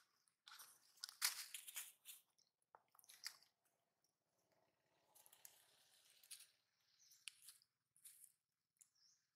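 Long-tailed macaque crunching and chewing a lotus seed: a quick run of sharp crunches in the first few seconds, then quieter chewing with a few single crunches.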